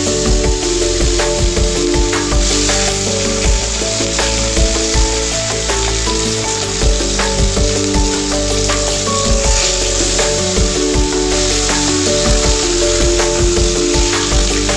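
Food sizzling and frying in hot oil in a pan, with short clicks scattered through it, over background music playing a simple melody.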